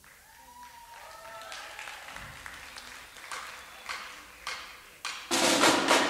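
Audience clapping: a few scattered claps and faint voices, then loud applause breaks out suddenly about five seconds in.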